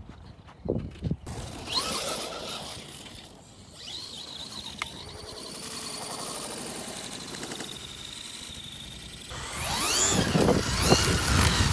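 Traxxas RC trucks' electric motors whining, the pitch rising and falling as they speed up and slow down, and growing louder near the end.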